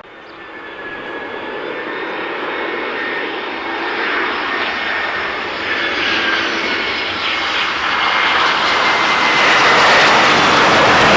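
Airliner engines growing steadily louder as the aircraft approaches: a broad rushing roar with a faint high whine over it.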